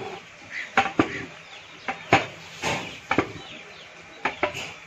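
Long metal ladle knocking and scraping against the inside of a large metal cooking pot as a big batch of biryani rice is stirred, with about eight sharp knocks spread unevenly through.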